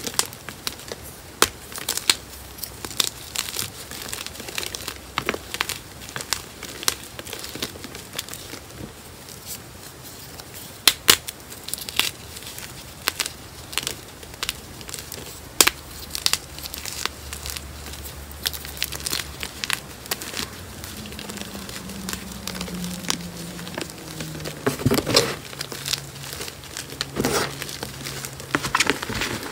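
Blocks of gym chalk (magnesium carbonate) being crushed and crumbled between the fingers: irregular crunches and crackles of breaking chalk, with crumbs falling back onto the heap.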